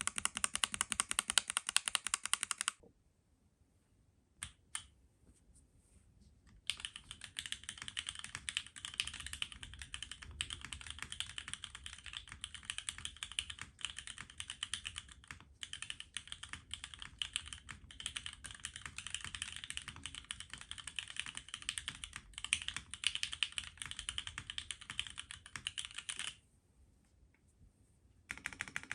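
Typing on a Neo 65 mechanical keyboard fitted with Gateron Oil King linear switches on a plastic plate with no foam: rapid keystrokes on the clacky side but with a fairly deep tone. A short burst of typing is followed by a pause with a couple of single clicks, then a long steady run of typing that stops briefly near the end and starts again.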